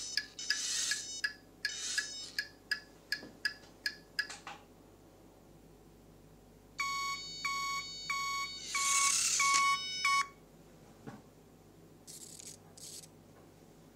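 Electronic beeping from the Turbo Racing C50 RC semi truck's built-in sound-effects module: a quick run of short beeping ticks, about three a second, for the first four seconds or so, then after a pause a series of evenly spaced beeps lasting about three seconds, with a short hiss among them.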